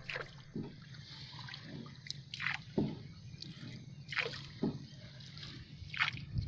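Small waves lapping and sloshing against the hull of a small boat, in irregular short splashes over a low steady rumble.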